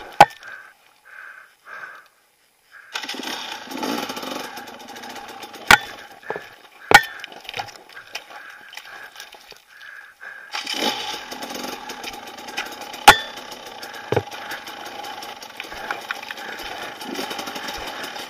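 Dirt bike engine running at low revs on a slow, rocky descent, faint for the first few seconds and then louder from about ten seconds in. About five sharp knocks of the bike striking rock punctuate it.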